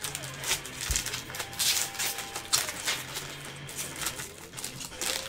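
Plastic wrapping on a trading card box crinkling and tearing as it is pulled open by hand: a run of irregular rustles and crackles.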